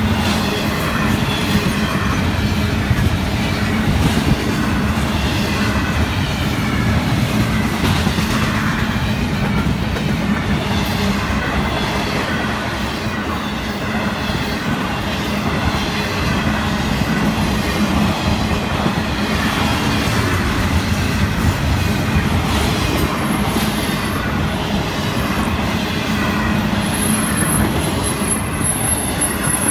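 Florida East Coast Railway intermodal freight cars, double-stack container wells and trailer flatcars, rolling past close by: a steady loud rumble and clatter of steel wheels on the rails. Thin high wheel squeal comes and goes, with a shrill squeal near the end.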